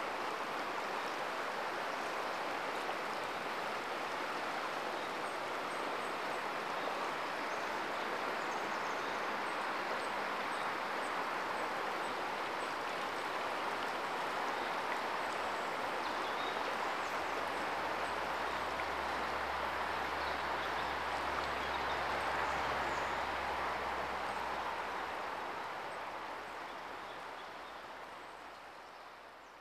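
Steady outdoor ambience: an even rushing noise like flowing water, with faint high chirps. A low rumble joins past the middle, and everything fades out near the end.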